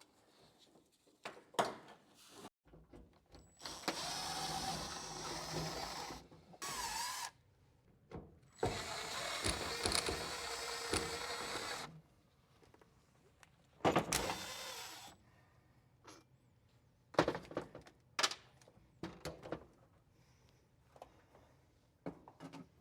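A small electric motor, likely a handheld power tool, runs in two stretches of about three seconds each and a shorter one about two-thirds of the way in. Clicks and knocks come between them.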